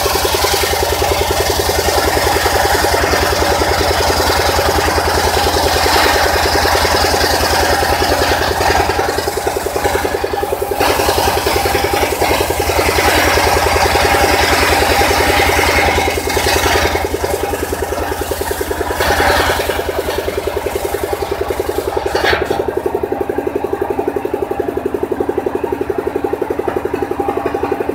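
Engine-driven circular sawbench running steadily while its blade rips along a log, the cutting noise rising and falling as the log is fed. The cutting stops about twenty-two seconds in, leaving the engine running on its own.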